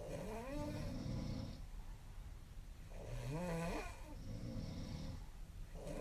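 A young woman snoring in her sleep: three snoring breaths about three seconds apart, the last one starting near the end. Each breath carries a rising, voice-like tone over a low rattling rumble.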